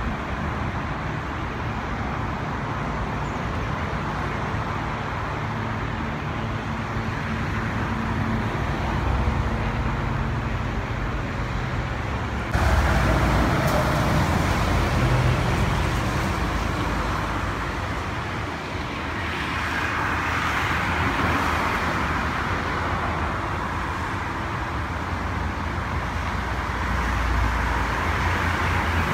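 Steady road traffic noise with a low rumble, jumping louder and brighter about twelve seconds in. Near the end it swells as a distant jet airliner's engines join in.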